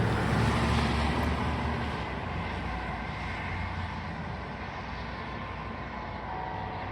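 A vehicle passing by on the road, its noise swelling about half a second in and then slowly fading, with faint church bells ringing underneath.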